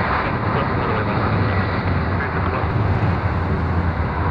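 Airbus Beluga XL's Rolls-Royce Trent 700 turbofan engines running steadily, a wide even noise with a strong low hum.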